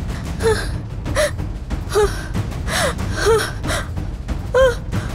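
A woman's short pained cries and gasps, about seven in quick succession, each falling in pitch, over a steady low rumble.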